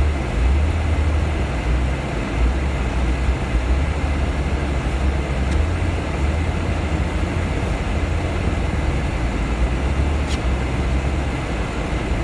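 Wind blowing on the microphone during a snowstorm: a steady low rumble under an even hiss.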